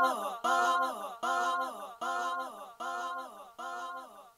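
Song's closing sung vocal note echoing on its own, with no beat, the same phrase recurring about every three-quarters of a second and growing quieter with each repeat as the track fades out.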